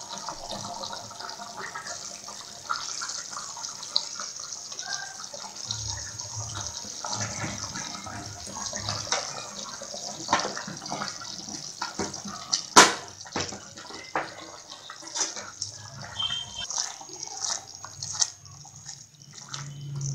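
Thick fish curry simmering in a pot, bubbles popping and bursting at the surface with a steady hiss. A single sharp click about thirteen seconds in.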